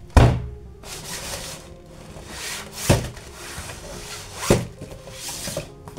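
Cardboard toy box being handled: the box parts rubbing and sliding against each other, with three sharp knocks of cardboard, the loudest just after the start and others about three and four and a half seconds in.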